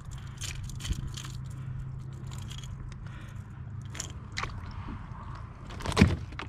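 Scattered knocks, clicks and scrapes of things being handled in a kayak, over a low steady hum, with a louder knock about six seconds in.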